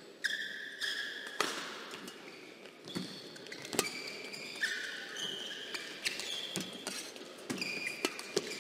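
Badminton rally: rackets strike the shuttlecock about once a second, with short squeaks from court shoes on the floor between the hits.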